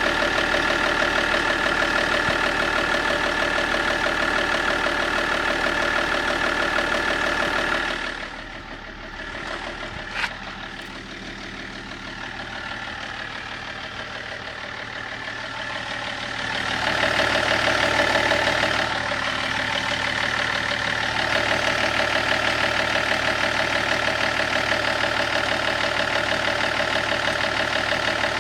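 Car engine idling with a rapid, even knock, which the owner places between the engine and the automatic gearbox. The sound grows fainter for several seconds about a third of the way in, with a single sharp click, then returns to full strength.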